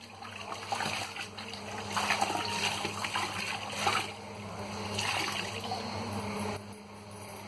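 Water splashing and trickling in a plastic bucket during floor mopping, in uneven swishes and splashes.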